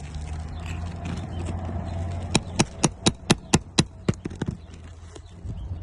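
Eight sharp, quick knocks, about four a second, from a roofer's hand tool working old nails out of roof shingles, over a low steady rumble.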